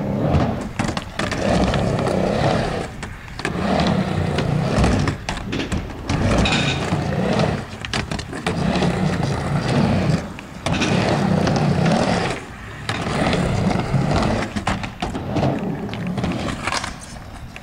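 Skateboard wheels rolling back and forth across a halfpipe ramp, each pass rising and fading, about every two seconds.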